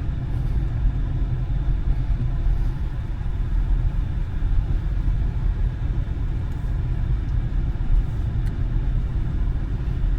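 A car driving slowly, with a steady low rumble of the vehicle running and no distinct events.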